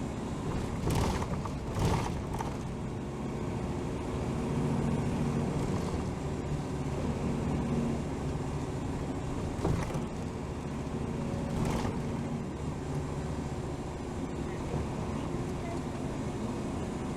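A 2007 Hino Rainbow HR city bus driving, its diesel engine running with a steady drone that strengthens at times. Short sharp knocks come about one and two seconds in and again around ten and twelve seconds.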